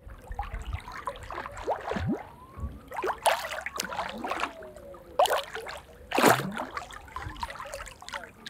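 Shallow seawater sloshing and gurgling close to the microphone as a hand moves through it, with sharper splashes about three, five and six seconds in.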